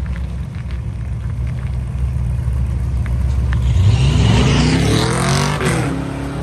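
A car engine rumbles low, then about four seconds in one car goes to full throttle, its exhaust note climbing steeply in pitch for about a second and a half before falling away abruptly.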